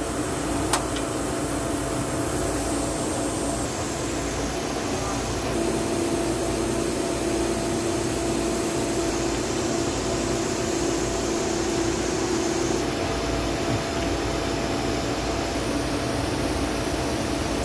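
Steady mechanical drone with a low humming tone, from machinery running in the background; a single sharp click about a second in.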